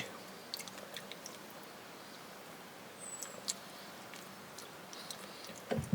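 Faint, scattered wet clicks and smacks of a person chewing raw bird meat, with a brief high squeak about three seconds in.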